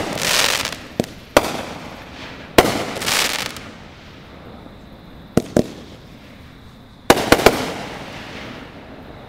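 Aerial fireworks launching and bursting overhead: about eight sharp bangs at uneven gaps, some in quick pairs or triples. Several bangs trail off in about a second of hissing crackle.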